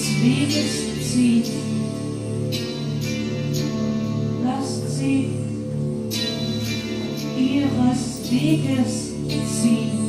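Live atonal music: a steady, pulsing low drone, repeated ringing strikes on gongs, and a woman singing without clear words.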